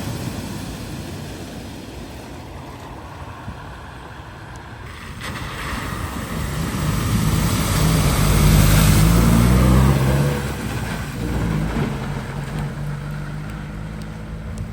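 A vehicle's engine driving through floodwater at a ford, its note rising and shifting as it comes closer and loudest about two-thirds of the way through, with a rush of water fading away at the start.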